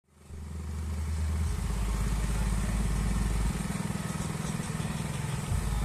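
Motorcycle engine running close by, over a deep, sustained bass from the truck-mounted loudspeaker stack that shifts pitch about a second and a half in and again around three and a half seconds.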